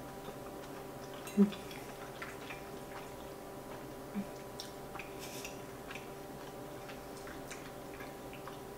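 Quiet eating sounds: a person chewing a mouthful of cheesy pasta, with faint irregular mouth clicks and a fork against a ceramic plate, over a steady low room hum. A brief low sound about a second and a half in is the loudest moment.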